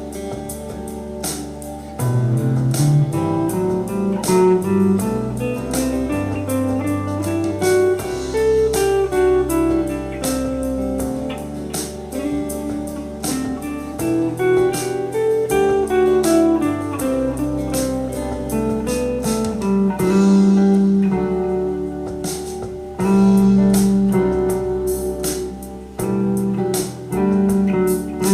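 Electric guitar playing runs that climb and fall in E minor over a backing track with drums and bass.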